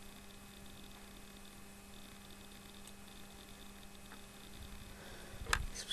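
Steady low electrical hum over faint hiss. A brief low thump and click come near the end.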